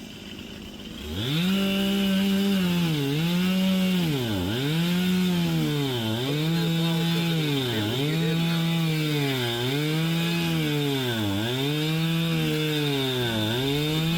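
Two-stroke chainsaw running at high revs cutting through a downed tree, coming up to speed about a second in. Its pitch dips sharply and recovers about every second and a half to two seconds.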